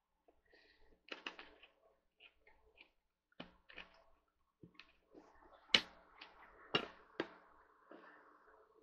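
Faint, scattered clicks and taps of metal bolts being handled and started by hand into the metal mounting rails under a chair seat, with a few sharper knocks in the second half.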